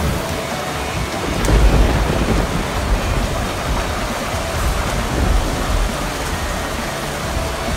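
Heavy rain pouring down in a windy storm, a steady hiss, with a deep rumble swelling about a second and a half in and again around five seconds.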